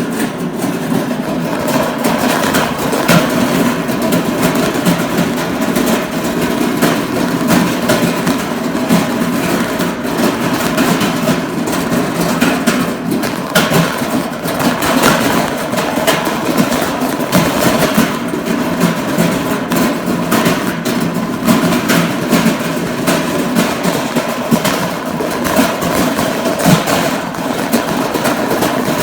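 A shopping cart's wheels and frame rattling and clattering loudly and without a break as it is pushed along.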